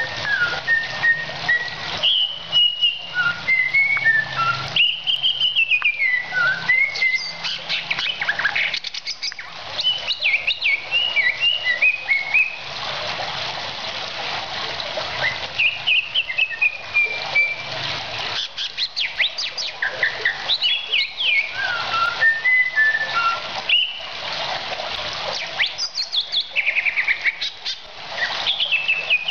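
Cucak ijo (green leafbird) singing: a long run of varied whistled phrases that slide up and down in pitch, broken by quick chattering runs.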